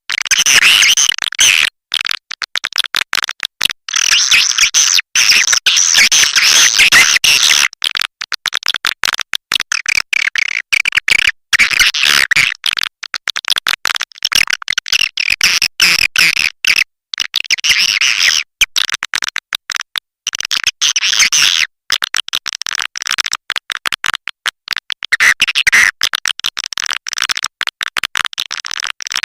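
Swiftlet call recording of the kind played to lure swiftlets: dense, rapid twittering chirps and clicks, high-pitched, swelling into louder bouts every few seconds with short breaks between.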